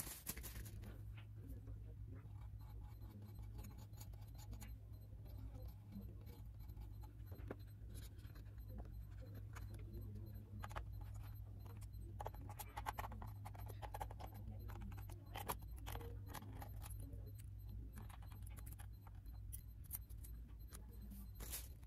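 Faint, scattered light clinks and taps of small metal tools and parts being handled, busiest about halfway through and again near the end, over a steady low hum.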